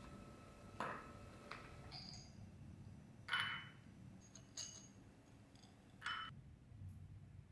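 Nuts (almonds, walnuts, apricot kernels) dropped by hand into a small glass bowl, clinking against the glass. There are several separate clinks with a short ring, the loudest about three seconds in.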